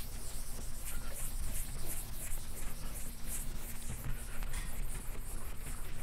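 Blackboard eraser wiping chalk off a blackboard in repeated back-and-forth strokes, a scratchy swishing about two or three times a second.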